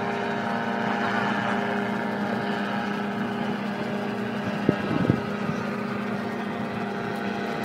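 Paramotor's small engine and propeller in flight, a steady drone. A couple of short knocks about five seconds in.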